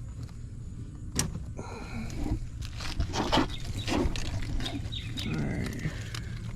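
Hand work on the underside of a car: a sharp click about a second in, then a busy run of knocks, clicks and scraping from parts and wiring being worked loose, over a low steady hum.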